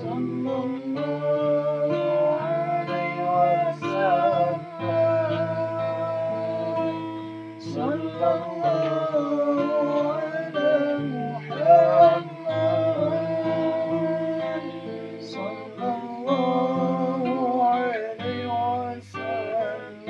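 Acoustic guitar accompanying a voice singing a gliding, ornamented melody line, the opening of a sholawat devotional song.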